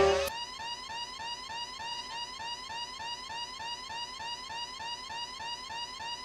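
Faint, quickly repeating rising electronic chirp, several a second and evenly spaced, a cartoon sound effect with a siren-like sweep.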